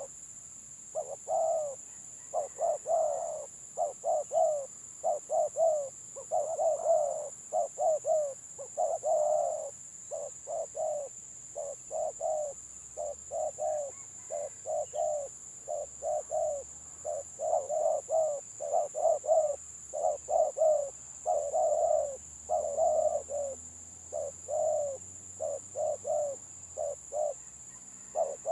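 Spotted doves (tekukur) cooing without a break, in quick stuttering runs of short coos of the 'gagap' song type.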